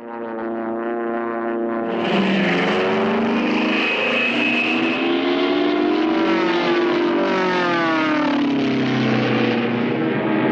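Piston-engined World War II fighter planes flying past, their engines droning and swooping in pitch as several overlapping aircraft pass. The sound starts abruptly and grows louder about two seconds in.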